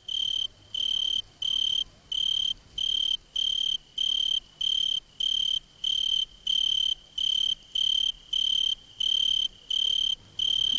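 Cricket chirping: one high, even chirp repeating steadily about one and a half times a second, each chirp about half a second long.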